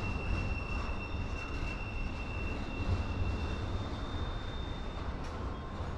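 Double-stack intermodal well cars of a KCS freight train rolling past on the rails: a steady low rumble with a thin, steady high wheel squeal that stops about three and a half seconds in, then a fainter, higher-pitched squeal.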